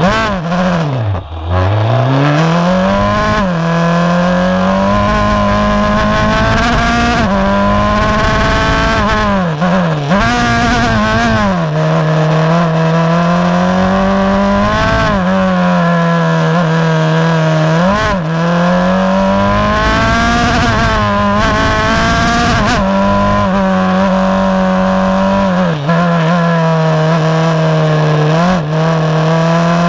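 Formula Renault 2.0 single-seater's 2-litre four-cylinder race engine, heard onboard at full throttle as it pulls away from the start and climbs the course. The revs dip deeply about a second in as it pulls away, then rise steeply again and again, dropping sharply at each gear change or lift for a bend.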